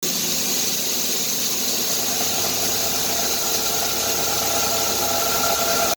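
Kitamura H-400 horizontal machining centre milling 4330 alloy steel: a steady machine noise with a strong high hiss and several steady whining tones from the cut, which grow stronger about two seconds in.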